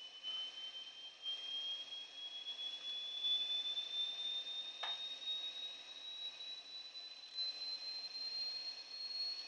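Frequency-response test tone played back from a type I cassette on a Sony TC-D5 recorder: a single pure tone rising slowly from about 3 kHz to about 4.4 kHz, over steady hiss. A short faint click comes about five seconds in.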